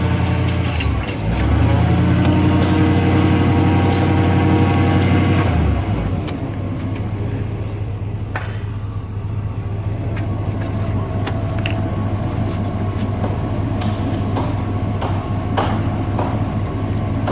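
Service truck engine running the mast hoist: a steady engine note that dips briefly about a second in, then drops to a lower, quieter idle about six seconds in. Sharp clicks and knocks of pipe and fittings being handled sound over the idle.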